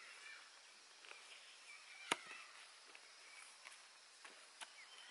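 Hand hoe chopping into dry, loose field soil: one sharp strike about two seconds in and a fainter one near the end.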